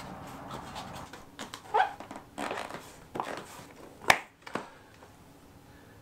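A small bicycle wheel's tubeless tyre, with a cut-down foam insert inside, being fitted and inflated: air hissing, several short scrapes and knocks of hands on tyre and rim, and one sharp snap about four seconds in, then a fainter steady hiss.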